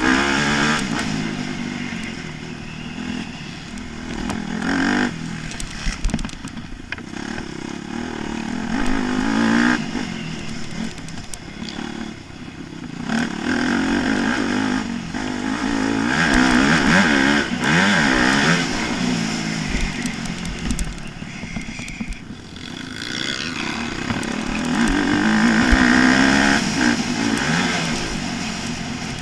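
Motocross bike's engine heard from the rider's helmet camera, revving up and easing off in repeated swells as it is ridden, its pitch climbing with each burst of throttle and dropping as the throttle is rolled off.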